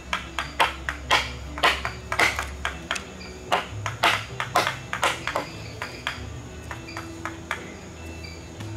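Wooden mallet striking the handle of a steel chisel that cuts into a wooden log: an irregular series of sharp knocks, about two a second, getting lighter in the last few seconds.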